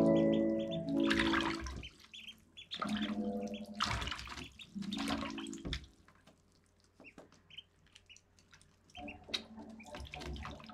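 Call duck and East Indies ducklings peeping in short high chirps while paddling and splashing in a shallow tub of water.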